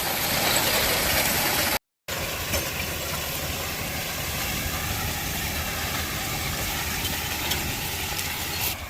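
Farm machinery running steadily, an engine's drone under a broad hiss, with a brief dropout to silence about two seconds in.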